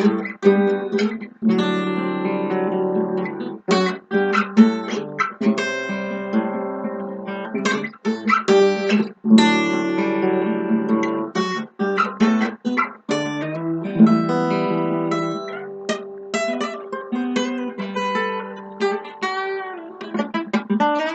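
Guitar tuned down to open D, strummed and picked in ringing chords with sharp strokes, a few notes bending near the end.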